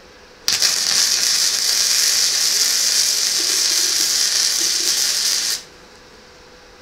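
MIG welder arc burning on a steel plate: a loud, steady hiss that starts suddenly about half a second in, runs for about five seconds and cuts off sharply.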